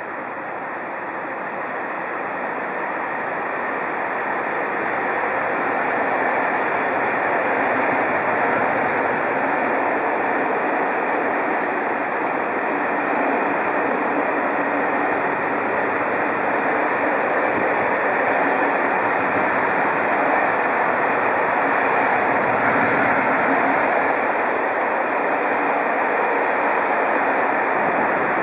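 Electric-hauled intermodal freight train passing: a steady rolling rumble of wagon wheels on the rails. It grows louder over the first several seconds, then holds.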